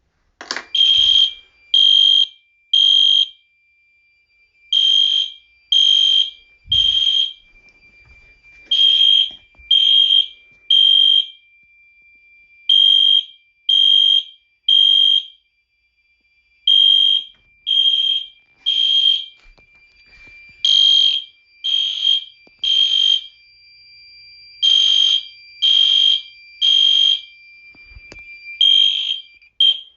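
Fire alarm sounder beeping in the temporal-three evacuation pattern: three loud, high beeps about a second apart, then a short pause, repeating. A faint steady high tone runs underneath.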